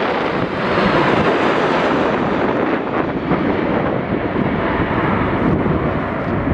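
Airliner jet engines rumbling steadily as a plane comes in to land, with wind buffeting the microphone.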